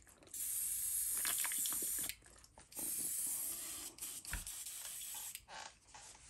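An airbrush spraying in two hissing bursts of about two seconds each, separated by a short pause, the second burst fading out about five seconds in.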